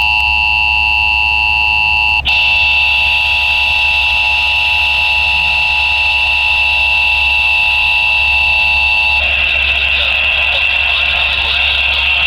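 Emergency Alert System attention signal, the steady two-tone alarm that opens a Required Monthly Test, heard over radio. It breaks with a click about two seconds in and carries on, and static hiss rises under it near the end.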